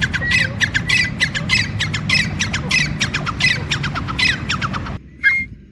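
Grey francolin calling: a loud, shrill run of short notes, about five a second, for about five seconds, then a single short call near the end.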